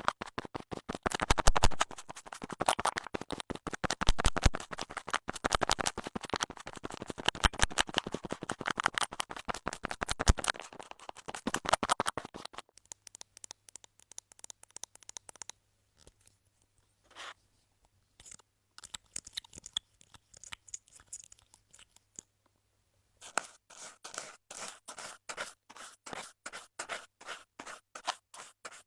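Close-miked ASMR scratching sounds: a dense run of rapid scratches and crackles for about twelve seconds, then sparse, quieter scratches with gaps, then a rhythmic run of strokes near the end.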